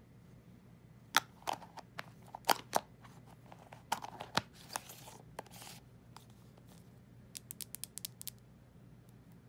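Hands handling a plastic tub of jelly cube slime: sharp clicks and crackles with a scratchy stretch around the middle, then a quick run of light taps near the end as the lidded jar is held up.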